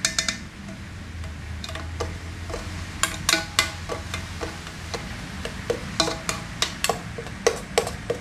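Metal spoons clinking, tapping and scraping against an aluminium pot while a thin kaya mixture is stirred, each tap ringing briefly; the taps come more often in the second half. A steady low hum runs underneath.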